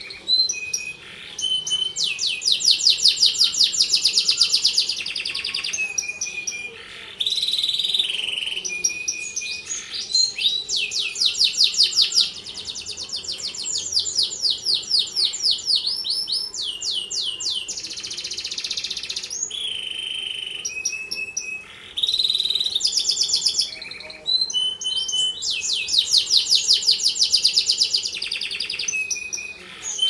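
Domestic canary singing a long, varied song. Rapid trills of repeated notes alternate with held whistled tones, in phrases broken by short pauses.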